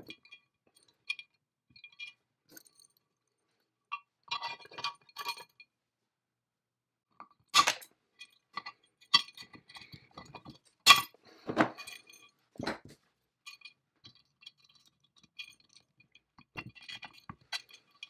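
Light metallic clinks and rattles of a small chain and wire ring being handled and fitted with pliers against a cast-iron tool body, in scattered bursts, with a few sharper metal knocks in the middle.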